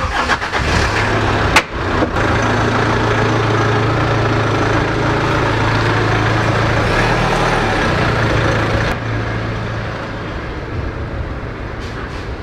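Car engine running steadily as the vehicle pulls out of a covered parking area, with a sharp click about a second and a half in. The engine sound drops off about nine seconds in as it moves away.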